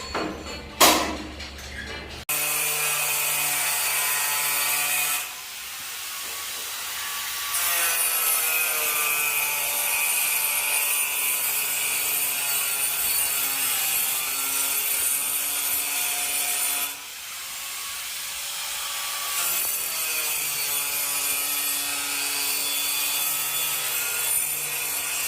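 Power saw cutting wood, running steadily in long stretches and easing off twice briefly between cuts.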